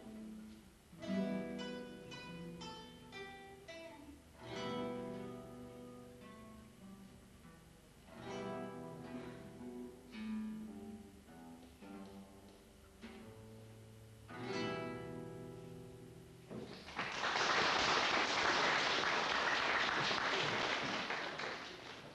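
Three classical guitars playing the last bars of a piece, spaced chords struck and left to ring. About seventeen seconds in, audience applause breaks out and runs for about five seconds; it is the loudest sound.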